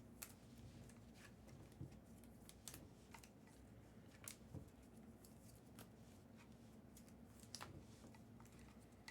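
Near silence: room tone with faint, irregular clicks and taps scattered throughout.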